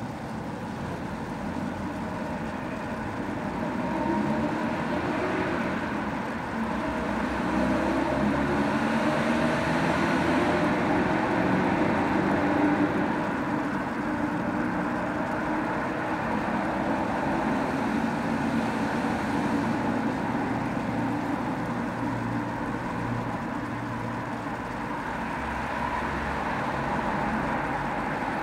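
Steady background rumble of engine or road-traffic noise, swelling about eight seconds in and easing after about thirteen seconds. No watch ticking stands out.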